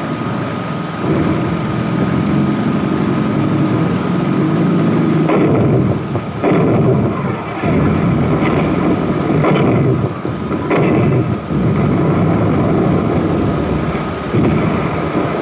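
German Sturmgeschütz assault gun running under way, its engine and tracks droning steadily, with four sudden loud bangs in the middle, typical of the guns firing while advancing.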